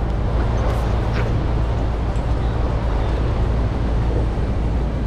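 Steady city street noise dominated by a low traffic rumble, with a few faint ticks in the first second.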